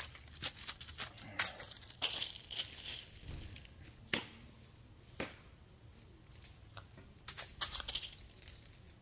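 Footsteps crunching through dry fallen maple leaves, thickest in the first three seconds, then a few scattered crackles.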